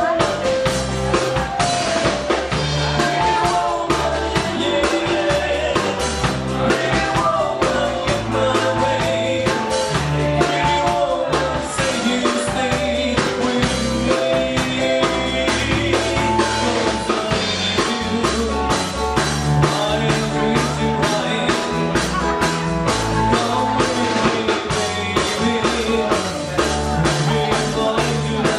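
Rock-style music with a drum kit keeping a steady beat under a pulsing bass and a melody line.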